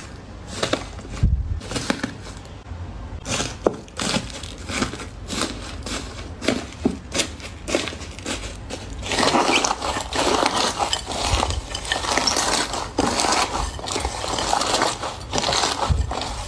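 Slime being pressed and squeezed by hand close to the microphone, giving a run of pops and crackles that turns into dense, continuous crackling from about nine seconds in.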